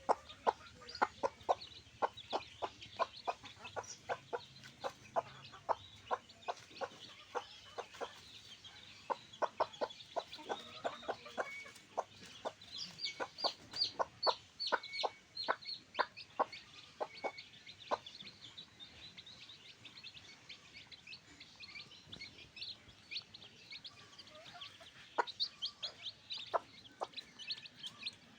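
Backyard chickens clucking: a dense run of short, quick clucks, with higher chirps joining in about halfway through and again near the end.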